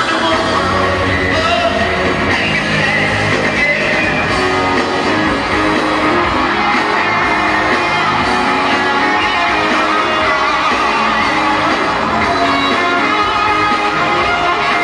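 Live rock band in a large arena, playing loudly without a break, with singing and some shouts over electric guitar.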